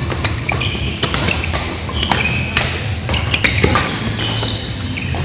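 Badminton rally: rackets striking the shuttlecock in sharp cracks at irregular intervals, with short high squeaks of court shoes on the mat, in a large hall.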